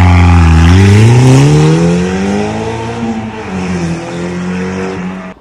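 KTM X-Bow GT's turbocharged 2.0-litre four-cylinder engine revving hard as the car accelerates away. Its pitch climbs, drops at a gear change about three seconds in, then climbs again while the sound fades into the distance.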